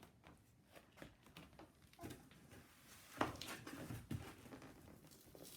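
Faint handling noises of a shipping package: a few light taps and clicks, then a louder rustle for about a second near the middle.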